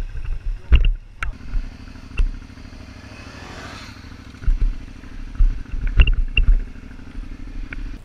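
Motorcycle engine running steadily while riding, with a few sharp knocks and a brief hiss that swells and fades about three and a half seconds in.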